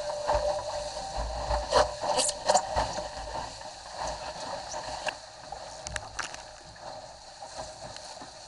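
Water rushing along the hull of a Cherub sailing skiff moving fast, with spray splashing over the boat and several sharp splashes or knocks in the first few seconds. The sound gets a little quieter about five seconds in.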